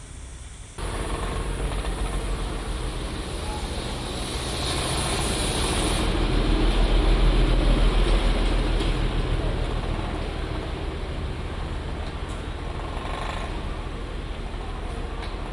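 Darjeeling Himalayan Railway narrow-gauge toy train rolling through a station: a steady low rumble of engine and wheels on the track, loudest about six to nine seconds in as the locomotive passes, then easing as the coaches follow.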